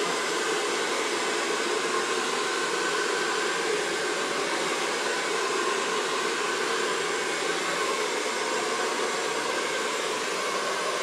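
AGARO HD 1120 2000-watt hair dryer running steadily, a constant rush of blown air with a faint whine from its motor.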